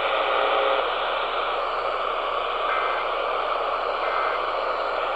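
Steady static hiss from a radio receiver, with no voice on the channel.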